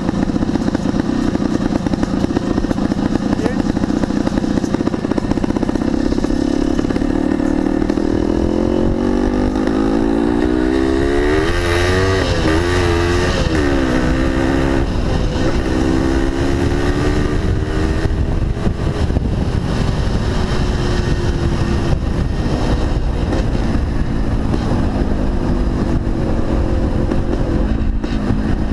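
1975 Yamaha DT400B's single-cylinder two-stroke engine running under way. Its note climbs as the bike speeds up, rises and falls a few times about halfway through, then holds fairly steady, over a low rumble of wind on the microphone.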